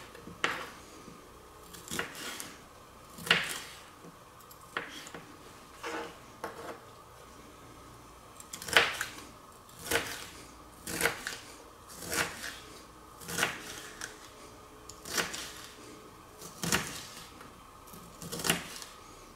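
Chef's knife chopping orange bell pepper strips on a cutting board: single knocks of the blade through the pepper onto the board, roughly one a second at an uneven pace.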